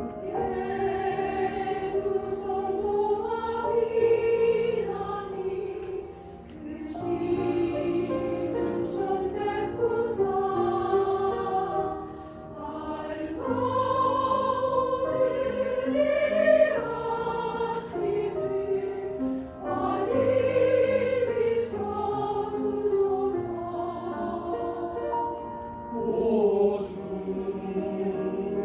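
Mixed church choir singing a slow Korean sacred song with piano accompaniment, in long phrases of about six seconds with short breaks between them.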